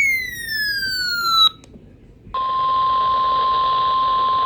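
A falling electronic tone for about a second and a half, then a short pause. About two seconds in comes a steady single-pitch alert tone with a hiss of radio static around it: the NOAA Weather Radio warning alarm tone that comes before a warning message.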